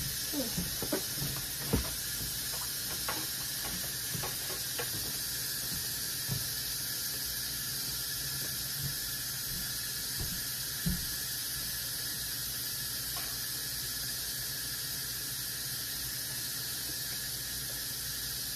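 Steady sizzling hiss of pork steaks cooking in gravy in a pan. A few light clicks and knocks come in the first five seconds, and another comes about eleven seconds in.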